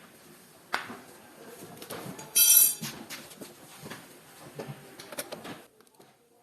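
Workshop clatter: a sharp click, then a brief loud high-pitched metallic squeal about two and a half seconds in, followed by scattered light knocks.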